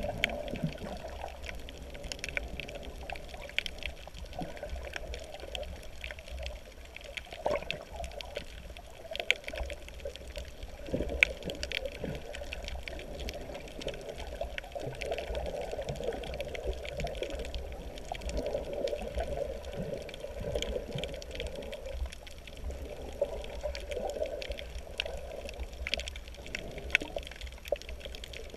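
Underwater sound of water moving and bubbling, muffled and steady, with scattered small clicks and crackles throughout.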